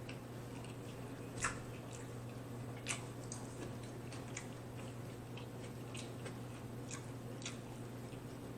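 Close-up chewing of steak tacos: scattered wet mouth clicks and smacks, with two sharper, louder smacks about a second and a half and three seconds in, over a steady low hum.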